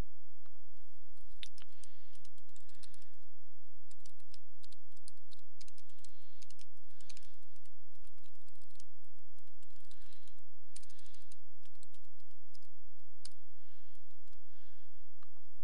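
Typing on a computer keyboard: quick runs of keystrokes in short bursts, with pauses between them.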